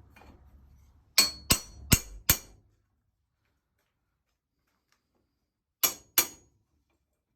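Sharp metallic taps on the parts of a longcase clock's movement: four quick strikes about a third of a second apart, then two more near the end, each with a short bright ring.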